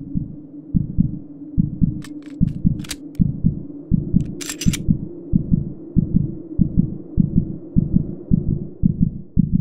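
Heartbeat sound effect: paired low thumps, lub-dub, about one beat every 0.8 seconds, over a steady low hum. A few sharp clicks come between about two and five seconds in.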